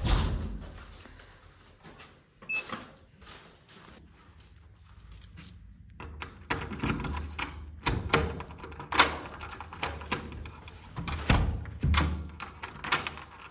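A door thuds shut, followed by scattered clicks and handling noise. Near the end keys rattle and a door's metal lever handle and lock clunk as the door is unlocked and opened.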